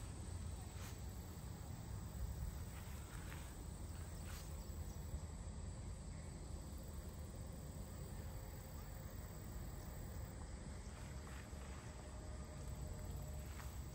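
Outdoor ambience: a steady low rumble with a faint, high, even hum over it and a few faint ticks.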